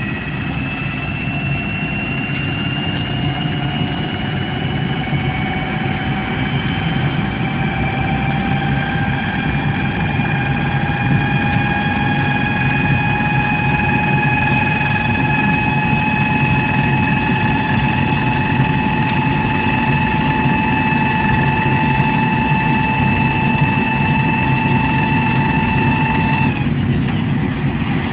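Jet engine running with a steady rumble and a high whine that slowly climbs in pitch as the engine spools up. Near the end the whine cuts off abruptly while the rumble goes on.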